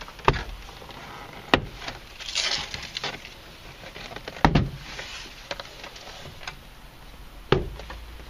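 Plastic retaining clips of a 2001 Honda Accord coupe's door trim panel snapping loose as the panel is pried off the door: four sharp snaps a few seconds apart, with plastic rubbing and rattling between them.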